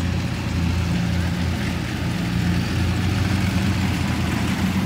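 Engines of two modified Yanmar rice combine harvesters running steadily as they cut, a steady low engine hum.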